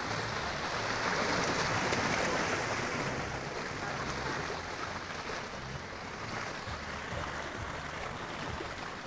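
Small sea waves washing and splashing against shoreline boulders, a steady rush that is louder in the first few seconds and then eases.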